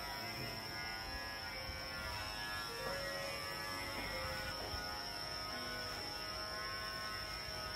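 Electric hair clippers running with a steady buzz as they cut a man's hair short.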